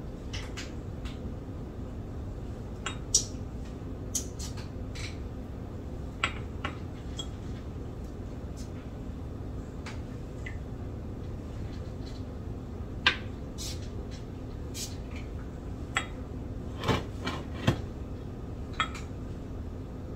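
Scattered light clinks and taps of a pastry brush against a glass measuring cup of melted butter and the baking sheet as butter is brushed onto bun dough, over a steady low hum. The sharpest clinks come about 3 s and 13 s in, with a quick cluster of them about 17 s in.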